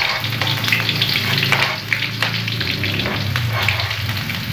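Chopped shallots, garlic and green chilli sizzling in hot oil in a wok as they are pushed in off a cutting board, with a metal spatula scraping and clicking against the board.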